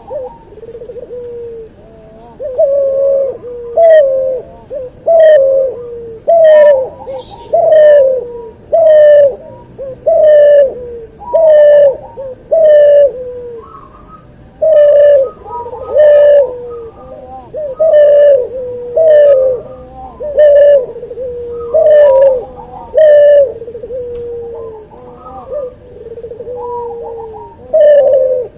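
Cuhu hybrid dove (a cross of a white albino puter, the Barbary dove, with a puter pelung) cooing over and over in a steady rhythm. The call comes roughly once a second, each coo a short note that rises and then falls, a louder note alternating with a softer one.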